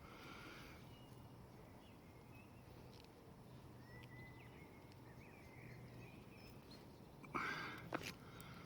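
Quiet background with a few faint, high bird chirps, then a brief louder noise about seven seconds in.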